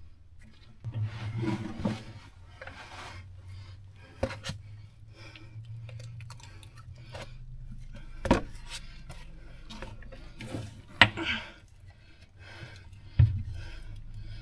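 Workshop handling noise: rubbing and scraping with a few sharp knocks of tools and parts being handled, over a steady low hum.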